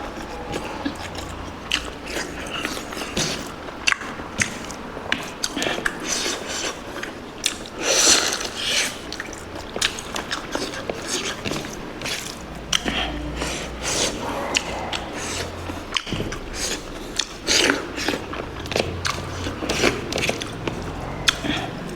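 Close-miked eating: chewing and biting on spicy pork curry, with frequent irregular crunches, wet smacks and clicks.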